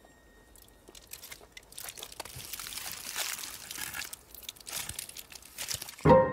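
Aluminium foil crinkling and crackling as it is unwrapped and crumpled by hand, building up about a second in. Near the end, a sudden loud hit leaves a ringing tone that fades.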